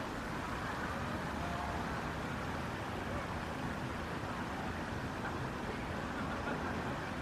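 Steady outdoor background noise: a constant hum of distant traffic with faint voices mixed in.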